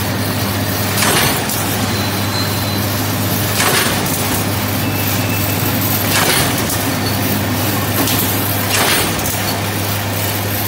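High-speed wire straightening and cutting machine running: a steady low hum from its three-phase main motor under the constant noise of the wire being straightened. About every two and a half seconds there is a short burst of noise, one for each length of wire cut and dropped from the trough.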